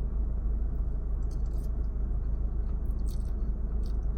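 Close-up chewing of food, with wet mouth clicks and smacks now and then, over a steady low hum.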